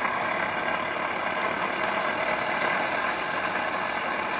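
Battery-driven lure course machine running steadily, its motor pulling the lure line around the rollers, with a faint click a little under two seconds in.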